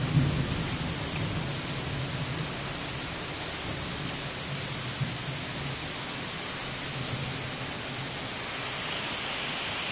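Heavy rain pouring down steadily on paving and trees, an even hiss. A low rumble sits under it, strongest about the first second and fading over the next several.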